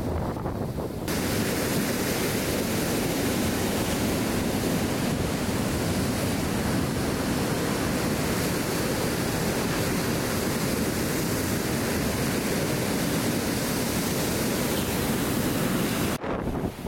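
Large storm waves breaking on a rock and concrete breakwall, with water cascading off the wall, making a steady dense rush that jumps louder about a second in. Wind buffets the microphone.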